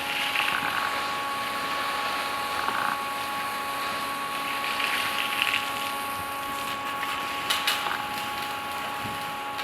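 Wide-cut bandsaw sawmill running steadily, its blade sawing through a large silver maple stump section: a steady hum of several tones over a hiss. A few sharp clicks come about seven and a half seconds in.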